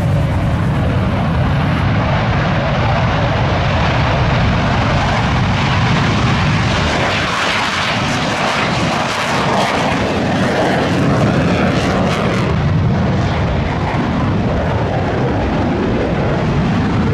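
Military aircraft engine noise: a loud, continuous roar that grows harsher for a few seconds in the middle.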